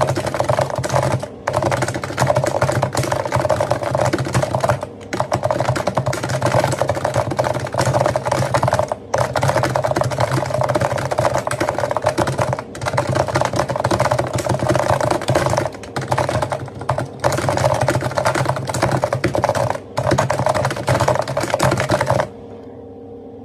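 Rapid, continuous typing on a Realforce GX1 Plus keyboard with 45 g Topre electrostatic capacitive switches. Key strokes come in fast runs broken by short pauses every few seconds, and the typing stops about a second before the end.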